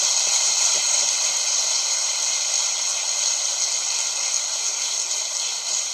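Steady, fairly loud hiss of recording noise with no speech, fading slightly.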